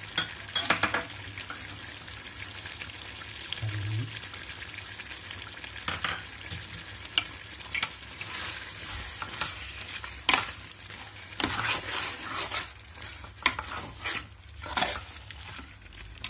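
A metal ladle stirs and scrapes chicken curry in a large metal pot, over a steady sizzle of the gravy cooking. The scraping strokes come irregularly and grow more frequent in the second half.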